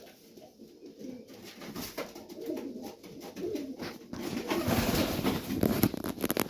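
Young Serbian highflyer pigeons cooing, the cooing growing louder about four seconds in, with a quick run of sharp clicks near the end.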